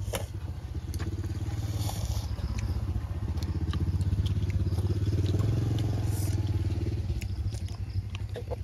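A small engine running with a fast, even putter, growing louder to about halfway through and then fading as it passes by.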